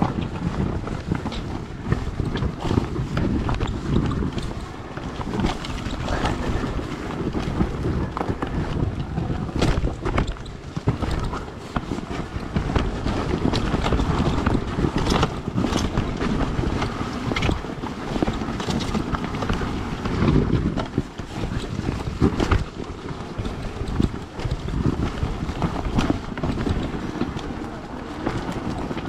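KTM XC 300 two-stroke dirt bike being ridden, its engine rumbling under heavy wind buffeting on the microphone, with scattered knocks and rattles from the bike.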